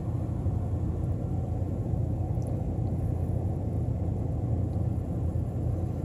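Steady low rumble of a car, heard from inside its cabin.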